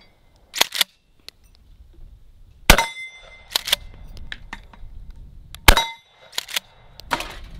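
Remington 870 pump-action shotgun firing Aguila mini slugs: two shots about three seconds apart. Each is followed by the quick double clack of the slide being racked, and the slide is also racked once just before the first shot.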